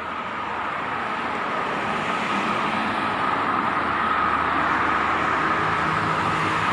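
Highway traffic noise: the rushing hiss of passing vehicles, growing louder over the first couple of seconds and then holding steady, with a low engine hum joining near the end.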